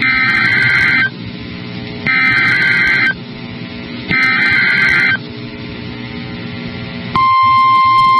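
Emergency Alert System SAME header: three one-second bursts of screeching digital data tones about a second apart, over a low radio hum. About seven seconds in, the steady 1050 Hz NOAA Weather Radio warning alert tone begins, signalling a warning broadcast, here a tornado warning.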